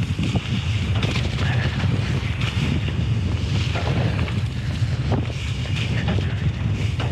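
Wind rushing over the camera microphone on a moving mountain bike, a steady low rumble, with tyre noise and scattered short knocks and rattles from the bike on the trail.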